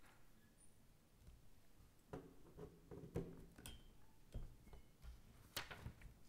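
Near silence: quiet room tone with a few faint, irregular clicks and soft knocks.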